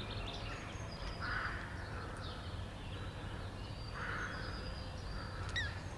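A crow cawing twice, about a second in and again about four seconds in, with small birds chirping and one falling whistled call near the end, over a steady low background rumble.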